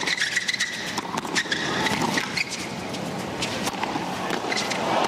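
Tennis shoes squeaking on a hard court, with sharp knocks of ball bounces and racket strikes around a serve.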